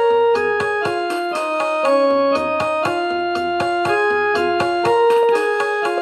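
Piano playing a melody in Raag Bhupali, a sequence of single held notes, each lasting about half a second to a second.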